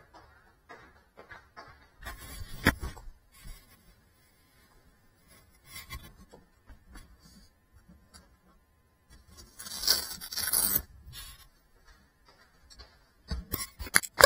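Intermittent rustling and a few sharp knocks in bursts about two, six, ten and thirteen seconds in, with no propeller whine: the small FPV drone and its action camera are being handled, not flying.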